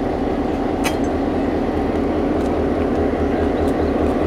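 A diesel locomotive's engine idling: a steady low rumble with a regular pulse, and a single short click about a second in.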